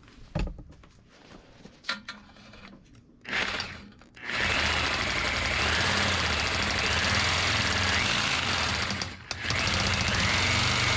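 A few light knocks and handling sounds, then about four seconds in a reciprocating saw starts cutting through stainless steel exhaust tubing, running steadily, stopping briefly and starting again near the end.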